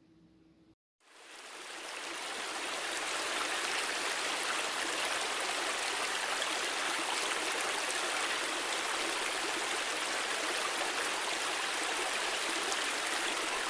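Steady rush of running water, fading in about a second in after a brief silence.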